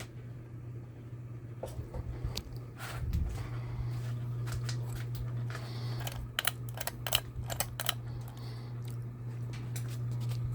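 Palm Air 52-inch ceiling fan running with a steady low hum, interrupted by a cluster of sharp clicks and taps about six to eight seconds in and a few more a couple of seconds in.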